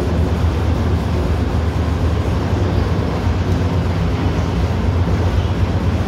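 Carpet wash: squeegee brooms and a brush pushing soapy water across a soaked carpet, an even wash of water noise over a steady low motor hum that runs without a break.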